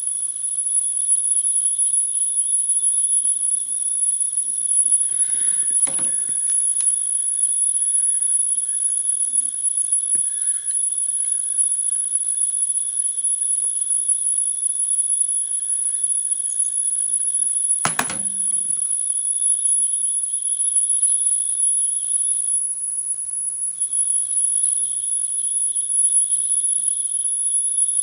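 Cassette deck playing a 10 kHz test tone from an alignment tape: a steady, much higher-pitched whine whose loudness flickers as the playback head's azimuth screw is turned. A few clicks about 5 to 6 seconds in, and one sharp click about 18 seconds in.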